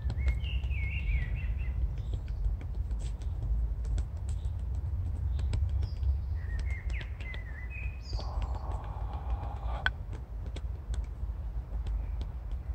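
Wooden escrima sticks tapping along the body, light irregular taps several times a second, for meridian and muscle tapping. Birds chirp about a second in and again about six seconds in, over a steady low rumble.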